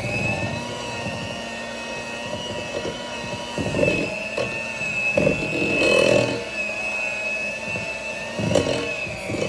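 Black & Decker electric hand mixer running steadily with a high motor whine, its beaters whipping butter and powdered sugar into buttercream in a glass bowl. There are a few short knocks, about four, five and eight and a half seconds in.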